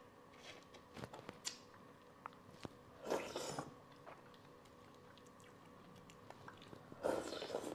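Close-miked eating of spicy boiled fish head: soft chewing and small mouth clicks, with two louder half-second eating noises about three seconds in and near the end.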